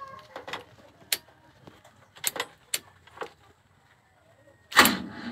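Sharp metal clicks of an ignition switch and its key being handled and turned, about half a dozen clicks spread over the first three seconds or so. A short, loud burst of noise comes near the end.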